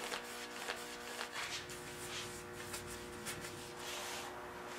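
Faint, repeated rubbing strokes as dye stain is wiped onto a sanded hardwood chair part, over a steady faint hum.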